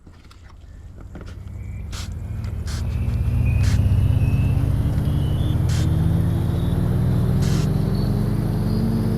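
A motor running, fading in over the first few seconds and then holding steady, its pitch rising slowly throughout, with a faint higher whine that rises with it and a few scattered clicks.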